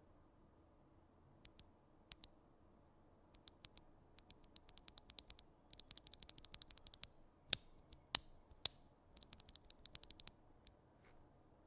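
Typing on a mechanical keyboard with tactile Gazzew Boba U4T switches and PBT keycaps: a few scattered keystrokes, then quick runs of typing, broken by three louder single key strikes in the middle.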